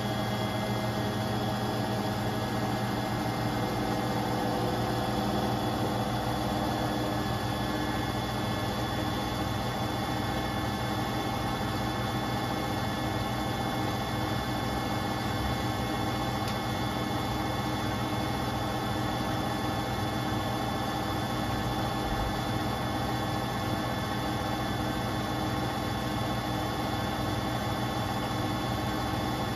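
Beko WTK74011W front-loading washing machine spinning its drum in a spin-and-drain cycle: a steady motor hum and whine with several constant tones and no change in speed.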